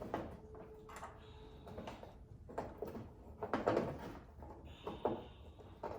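Irregular metal clicks and scrapes of a hand wrench working a rusted bolt loose, with tool and parts handling.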